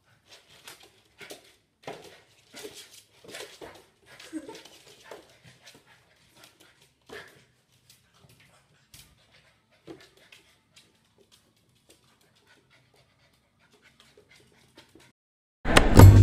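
Golden retriever puppy playing at a mirror: faint scattered scuffles and claw taps with panting and a brief whimper about four seconds in, thinning out after about ten seconds. Loud music starts abruptly near the end.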